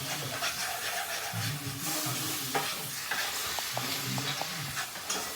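Blended garlic, ginger, bell pepper and onion sizzling in melted butter in a pan while being stirred, with a few light clinks in the middle.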